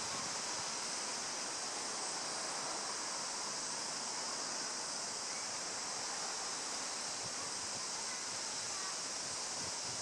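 Steady high-pitched hiss of outdoor background noise, unbroken throughout, with no clear bird call.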